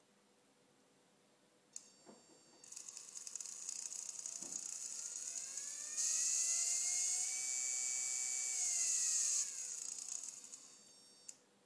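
A hand-held RC car electric motor driven by an electronic speed controller: after a click it spins up with a whine that rises in pitch, holds at full speed, then winds down and stops, ending with another click. Over it runs a loud, high-pitched whirring hiss.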